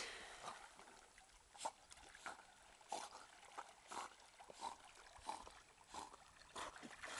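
Dog swimming in lake water: soft, faint splashes of its paddling strokes, about one or two a second.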